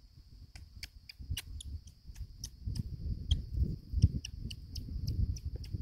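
Outdoor wildlife ambience: a steady high-pitched drone with a string of sharp chirping clicks, two or three a second, starting about half a second in, over a low, uneven rumble.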